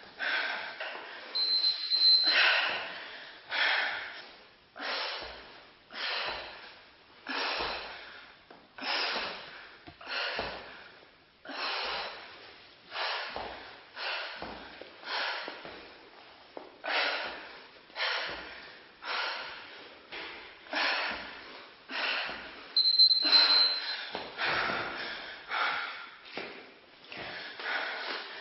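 A woman breathing hard through a bodyweight workout, a sharp forceful exhale about every second and a bit, in time with her exercise repetitions. A brief high beep sounds twice, once near the start and once about three-quarters of the way through.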